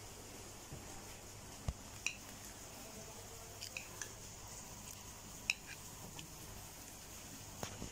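Kitchen knife clinking and scraping against a plate while a ring cake is cut into pieces: a handful of faint, sharp clinks spread over several seconds.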